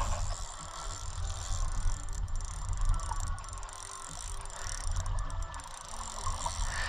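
Fishing reel being cranked against a hooked fish, its gears and mechanism clicking and whirring over a steady low rumble.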